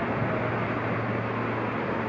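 Steady outdoor rail and traffic background noise: a low hum under an even hiss, with a faint thin whine that dips and rises a little in pitch.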